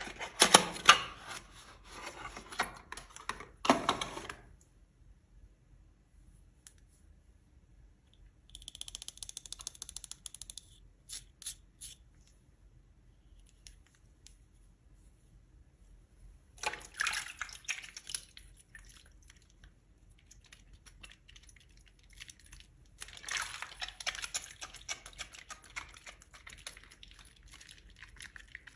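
Mushy soaked soap being scuffed, giving crackly, squishy scraping in four spells separated by quiet pauses.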